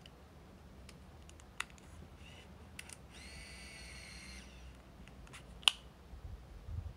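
Olympus OZ 130 zoom compact film camera: a few light clicks, then its lens motor whirs steadily for about a second and a half as the zoom lens retracts. A sharp click near the end as the sliding front cover snaps shut over the lens.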